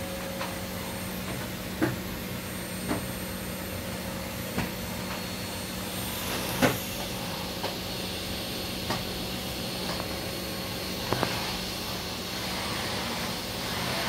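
Vacuum cleaner running steadily, its motor noise brightening near the end, with about ten short sharp clicks scattered through, the loudest about six and a half seconds in.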